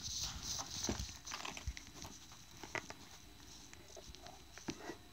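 Handling noise: scattered rustles and small clicks and knocks as the recording camera is moved and set down on a fabric bed cover, fading toward the end.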